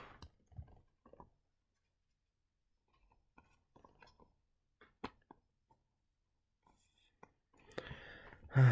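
Faint scattered clicks and rustles of Magic: The Gathering cards being handled, then a loud breathy sigh near the end.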